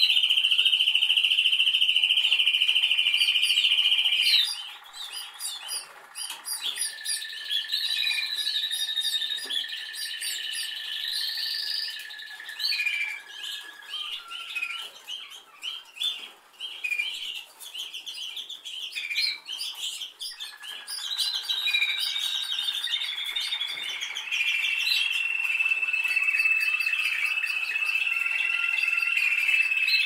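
Canary singing: a loud, fast steady trill at the start, then a run of varied warbled phrases and a long held whistled note. Another long steady trill follows about three-quarters of the way through.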